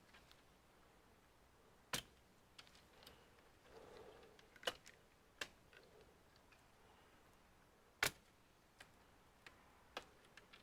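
Scattered sharp clicks and taps from tools and small parts handled while taking apart an all-in-one computer, about a handful in all, the loudest about eight seconds in, with faint rustling between.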